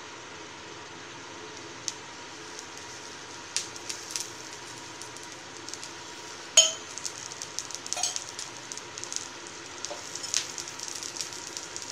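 Aval dosa batter sizzling on a hot griddle as it cooks and sets, a steady soft hiss with scattered sharp pops and crackles, the loudest about six and a half seconds in.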